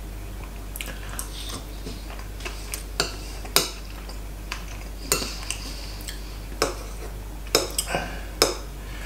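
Metal chopsticks clicking and tapping against a ceramic plate and a small sauce bowl while slices of sashimi are picked up and dipped: a scatter of light, irregular clicks, about a dozen in all.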